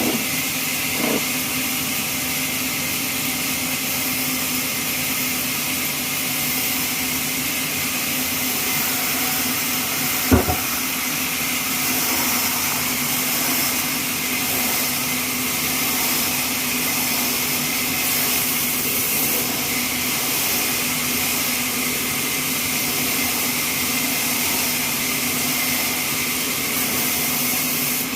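Horizontal band sawmill running steadily, a constant hiss over a low hum. A single sharp knock sounds about ten seconds in.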